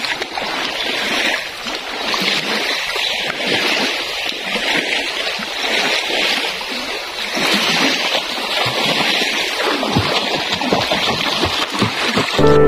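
Shallow lake water lapping and splashing at the shoreline, an uneven watery wash with no clear single strokes. Soft instrumental music comes in just before the end.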